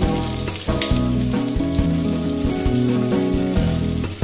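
Background music with held notes that change in steps, over prawns sizzling in hot oil in a frying pan.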